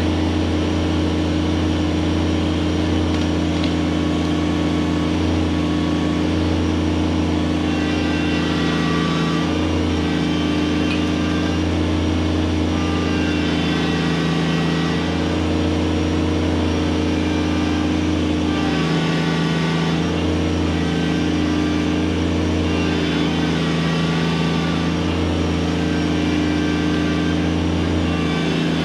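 Kubota BX23S subcompact tractor's small three-cylinder diesel running steadily under load while it drags a fallen tree trunk out of the pond. Its note dips briefly twice, about ten and nineteen seconds in.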